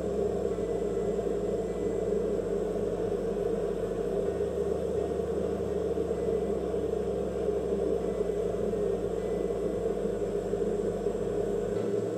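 Hot air rework station blowing a steady rush of air onto a phone logic board, heating a boost coil to lift it off a donor board.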